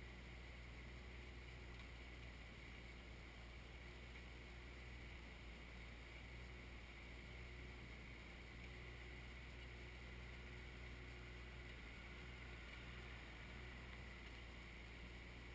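Faint, steady running of the Kioti 3054 tractor's diesel engine, a low even hum with no sudden knocks or changes.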